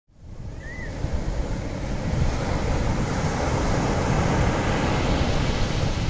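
Small waves washing onto a sandy beach, with wind buffeting the microphone, fading in over the first second. A single short high chirp sounds near the start.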